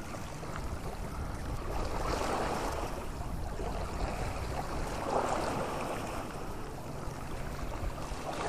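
Lake water lapping at the shoreline, swelling twice, about two and five seconds in, over a low rumble of wind on the microphone.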